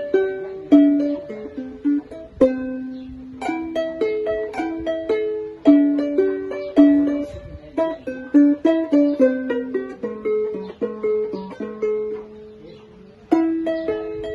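Burmese arched harp (saung gauk) being plucked: a melody of single ringing notes, each fading away, with short pauses between phrases.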